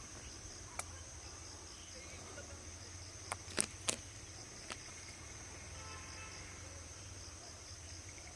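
Insects, crickets or similar, shrilling steadily in a high pulsing chorus over a low hum. Five sharp clicks break in, the loudest two close together near the middle.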